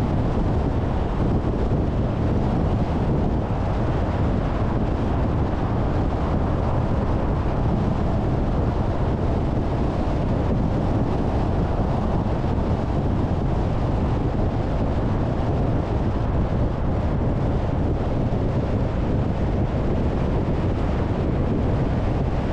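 Steady road noise of a car driving: a low tyre-and-engine rumble mixed with wind noise on the microphone, even throughout with no distinct events.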